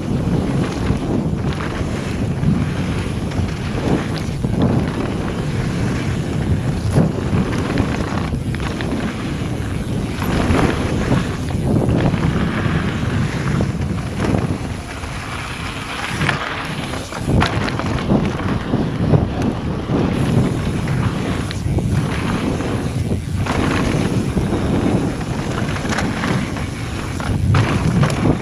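Wind buffeting the microphone as a mountain bike descends a loose gravel trail at speed, with the tyres rolling over stones and frequent short knocks and rattles from the bike over the rough ground.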